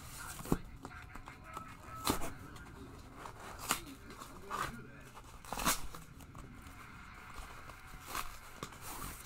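Cardboard record mailer being worked open by hand: several short bursts of tearing and scraping cardboard, spaced a second or two apart.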